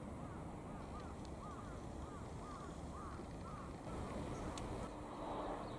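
A bird calling outdoors, a short call repeated about twice a second over a steady low rumble of outdoor background noise. About four seconds in the calls stop and the background changes to a louder hiss with a steady low hum.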